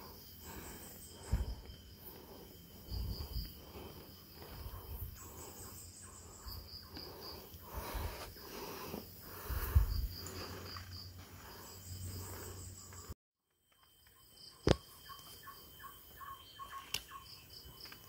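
Forest insects chirping in repeated pulsed bursts over a steady high-pitched whine, with a few low thumps in between. After a sudden break about 13 seconds in comes a sharp click, then a quick run of chirps near the end.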